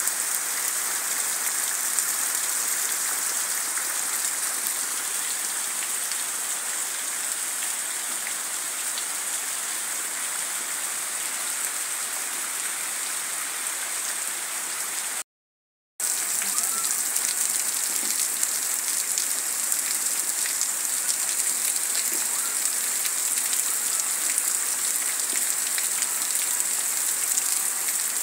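Heavy rain pouring steadily onto leaves and muddy ground, a dense even hiss with fine drop ticks. It cuts out to silence for under a second about halfway through.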